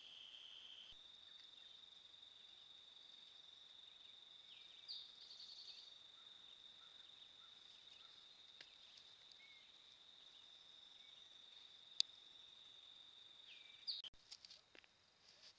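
Faint steady high-pitched trilling of night insects in the woods, picked up by a trail camera's microphone. A brief louder chirp comes about five seconds in, and a single sharp click near twelve seconds.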